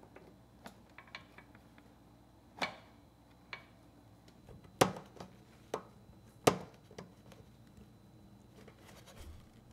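Irregular sharp clicks and knocks of pliers and metal parts as a fuel line is pushed onto its fitting and its hose clamp slid into place inside a Yamaha EF3000iSE generator's frame. The two loudest clicks come a little past halfway.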